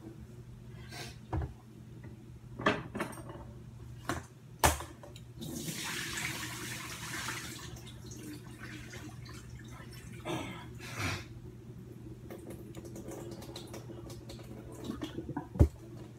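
Water running briefly from a kitchen tap for about two seconds near the middle, as rice is washed, among scattered knocks and clinks of kitchenware, over a steady low hum.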